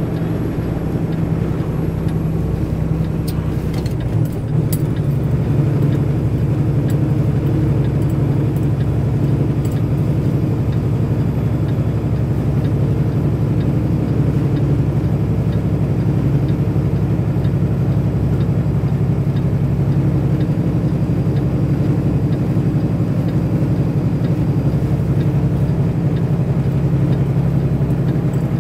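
Diesel tanker truck running steadily on the road, its engine drone mixed with road noise. A few faint clicks and a brief drop in level come about four seconds in.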